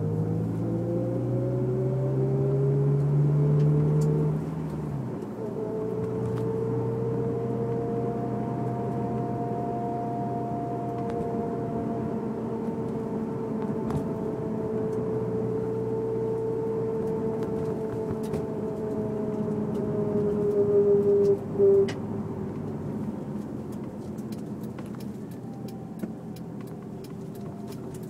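Honda S2000 driving, its engine pulling up in pitch for the first few seconds, then dropping off about four and a half seconds in. A long, nearly steady whine then runs with the car, slowly rising and falling, and breaks off suddenly about 22 seconds in. The whine comes only under throttle, and the owner suspects the differential or the transmission.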